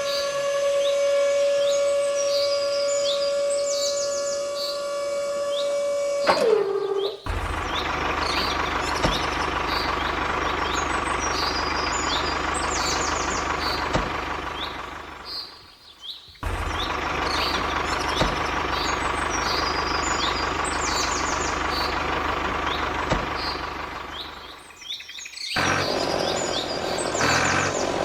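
Birds chirping over a steady high whine from a small electric motor, which drops in pitch and stops about six seconds in; a noisier steady running sound follows, cut off briefly twice.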